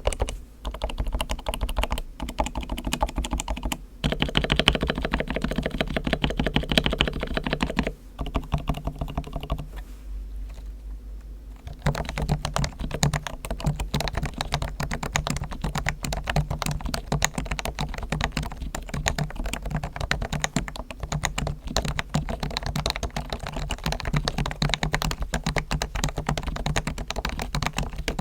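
Realforce R1 Topre electrostatic-capacitive keyboard being typed on quickly and continuously, its springs and sliders lubed with Krytox and its stabilizers tuned and lubed, with sound-damping foam inside. The keystrokes ease off briefly about ten seconds in, then fast typing resumes.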